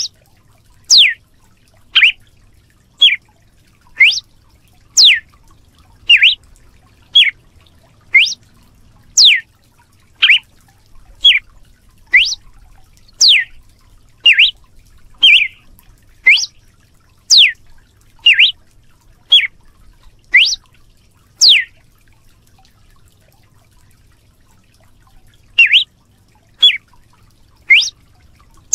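Red-cowled cardinal singing a run of loud, clear notes about one a second, each a quick upward or downward sweep, with a pause of about four seconds near the end before the notes resume.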